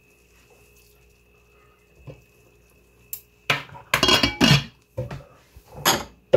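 Kitchen dishes and utensils clattering: a few light ticks, then from about halfway through a run of loud knocks and clinks.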